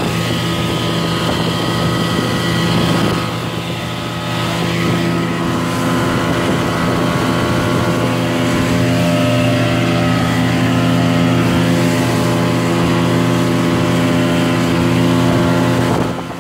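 Small fishing boat's engine running steadily while under way, with water rushing along the hull.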